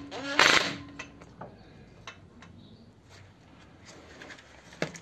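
A short clatter about half a second in, then faint scattered clinks and rustles of hand tools and nuts being handled while fitting nuts onto engine mounting studs, with one sharper click near the end.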